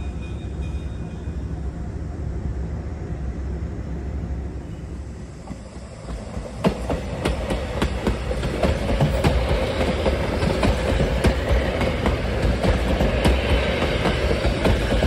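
Stainless-steel Nebraska Zephyr passenger cars rolling past, with wheels clicking over the rail joints. A low rumble gives way about six and a half seconds in to louder, closer running with a steady stream of clicks.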